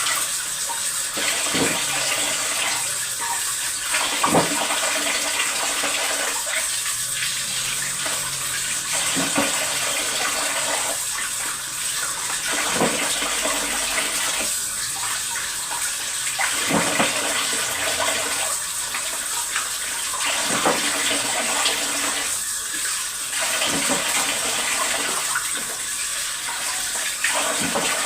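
Water running steadily from a kitchen tap, with a knock or clink now and then.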